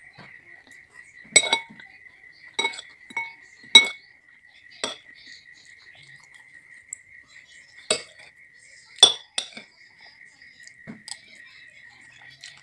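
Metal spoon and fork clinking and scraping against a ceramic bowl of noodles: about nine sharp clinks at uneven intervals, the loudest about a second and a half in and near four seconds. A faint steady high whine runs underneath.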